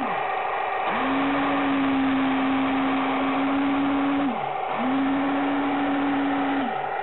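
Heng Long Tiger II RC tank's drive running with a steady whine over a hiss. The whine sinks in pitch and cuts out briefly about four seconds in and again near the end, then starts up again as the tank moves off.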